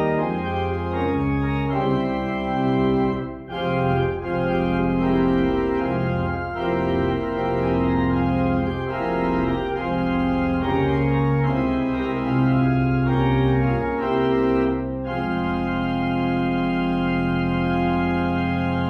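Organ playing slow, sustained chords. There is a brief break about three and a half seconds in and another near fifteen seconds, after which a final chord is held through the last few seconds.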